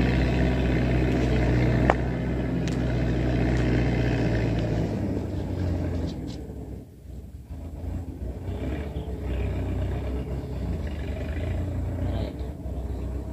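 An engine running with a steady low hum that fades away about six seconds in, leaving softer, uneven outdoor noise.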